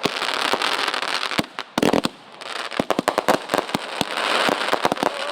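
Consumer fireworks going off in rapid succession: many sharp pops and bangs over a dense crackle, with a brief lull about two seconds in.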